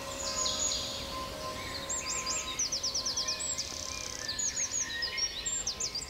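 Songbirds singing in a beech forest: several birds with short, high, quick repeated notes and trills.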